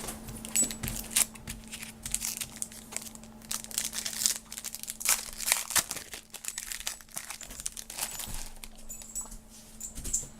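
Trading card pack wrapper crinkling and tearing as it is opened by hand, in a dense run of irregular crackles that thins out near the end.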